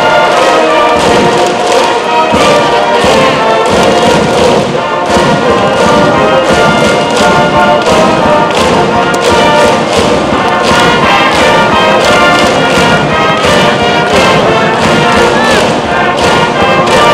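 A high school cheering brass band playing a baseball cheer tune at full volume, trumpets and trombones over a sousaphone, with a steady drum beat.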